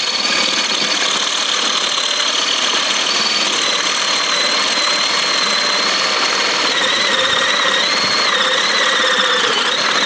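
Handheld power drill whining steadily as a 1½-inch spade bit bores a hole into a wild cherry log, throwing wood chips. Its pitch wavers and sags a little in the last few seconds.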